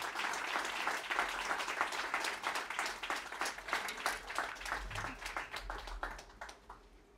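Concert audience applauding. The clapping thins out and dies away over the last couple of seconds.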